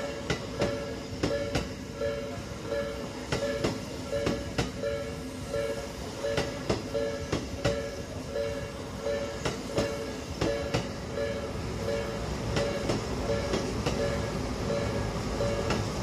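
Japanese railway crossing warning bell ringing steadily, about two strokes a second, while an electric commuter train passes, its wheels clacking sharply over the rail joints.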